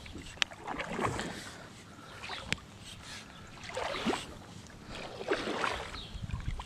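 Kayak paddle strokes, each blade swishing through the water about every second and a half, five in all. Two sharp clicks fall between the early strokes.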